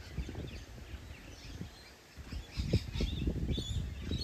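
Small birds chirping and twittering, busiest in the second half, over irregular gusts of wind buffeting the microphone.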